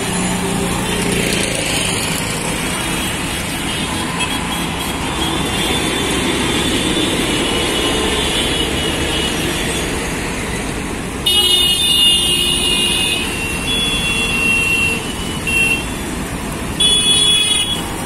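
Dense city traffic running steadily, with engines and distant horns. A loud bus horn blares for about two seconds a little past the middle, then sounds twice more in shorter blasts near the end.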